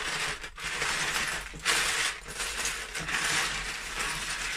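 Loose plastic Lego bricks clattering as two people's hands rake and sift through large plastic tubs full of them, with a couple of brief dips where the sifting pauses.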